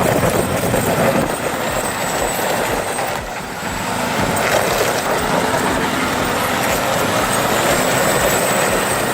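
Diesel engine of an overloaded MAZ logging truck labouring under heavy load as it climbs a hill, a steady rough running noise.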